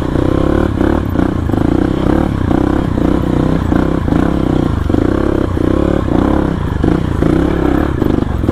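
Single-cylinder engine of a Yamaha WR155R trail bike revving up and down in quick, repeated surges under short bursts of throttle.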